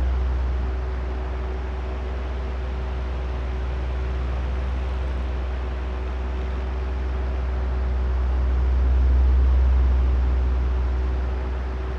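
Oscillating electric fan running steadily: a low, airy drone with a faint motor hum. It swells and fades slowly as the fan head sweeps back and forth, loudest just before the start and again about nine seconds in.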